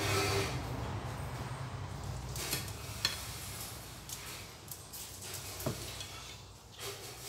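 Metal kitchen tongs clinking against a pot and a plate as boiled corn cobs are lifted out and set down: a few sharp clicks, the loudest about three seconds in, over a steady low hum.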